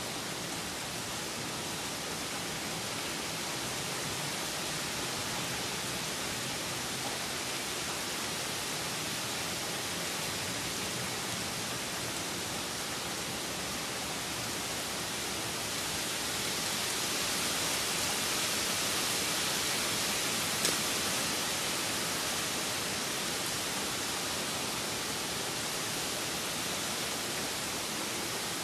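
Steady rain falling, an even hiss that grows a little louder for several seconds just past the middle, with one brief tick during the louder stretch.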